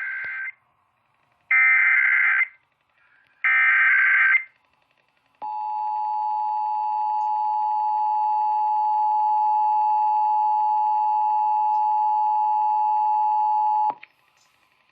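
Emergency Alert System broadcast: three short bursts of buzzy digital SAME header data, a second apart, then the steady two-tone EAS attention signal held for about eight and a half seconds before cutting off sharply. The sequence opens an EAS alert, here the start of a state monthly test.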